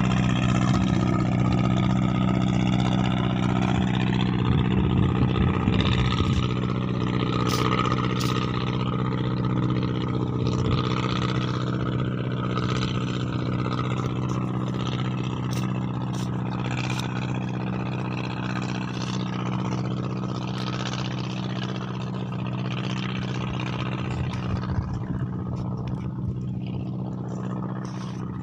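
A boat engine running steadily at an even pitch, gradually growing fainter.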